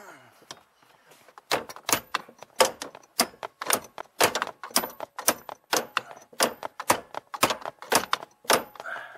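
Hammer blows on the steel steering shaft of a 1996 Ford Mustang, driving the tight-fitting replacement shaft into place: a run of sharp metallic strikes, about three a second, starting about a second and a half in and stopping near the end.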